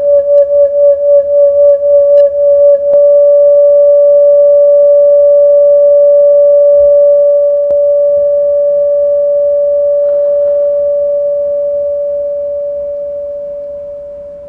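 A Rijke-style singing tube, a glass tube with heated steel wool inside, giving a loud steady tone with faint overtones. It pulses about four times a second for the first few seconds, then holds steady and slowly fades away as the heat dies down.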